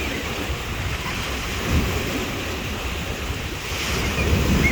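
Sea waves washing onto the shore, swelling about two seconds in and again near the end, with wind rumbling on the microphone.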